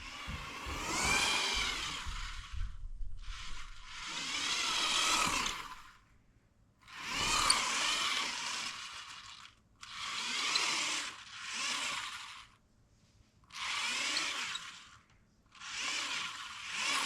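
Small electric drive motor and plastic gearing of a remote-control Lego Porsche running in repeated whining bursts of one to three seconds, with short pauses between, as the car is driven.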